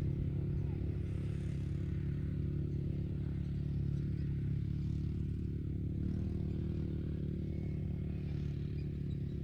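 A steady low motor hum, running evenly without change.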